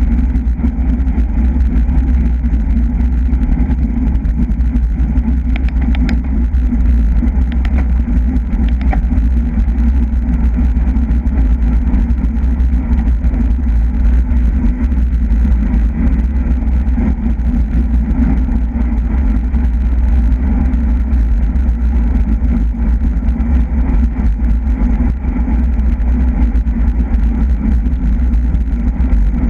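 Wind buffeting a bicycle-mounted camera's microphone while riding at race speed: a loud, steady low rumble, with a few faint clicks about six to nine seconds in.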